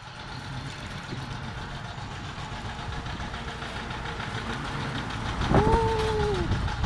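Steady wind and traffic noise while riding a bicycle, slowly growing louder. About five and a half seconds in, a single horn note sounds for about a second.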